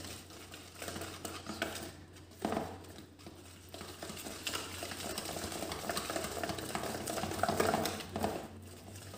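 Wire whisk beating eggs into flour in a plastic bowl, mixing a liquid coating batter: a quick run of light ticks and scrapes, with one louder knock against the bowl about two and a half seconds in.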